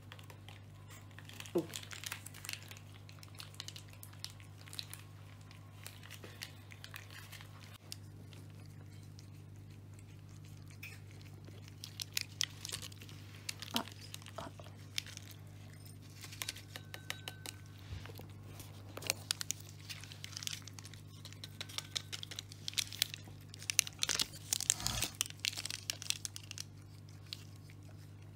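Cats licking and lapping from bowls on the floor: quick, wet, clicking licks in irregular clusters, sparse at first and much busier in the second half. A steady low hum runs underneath.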